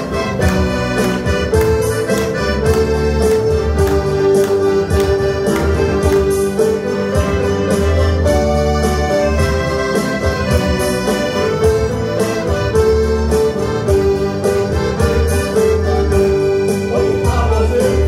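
Instrumental music for a medley of church choruses: accordion chords held over a bass line and a steady drum beat, with no singing.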